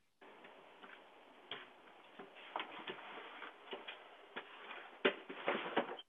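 Scattered light knocks and clicks picked up by a video doorbell's small, thin-sounding microphone as a man climbs back up the porch steps and sets a cardboard parcel down, with the sharpest knock about five seconds in and a short cluster just after.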